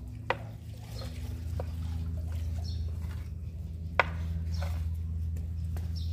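A steady low hum with scattered sharp clicks and taps. The loudest taps come just after the start and about four seconds in.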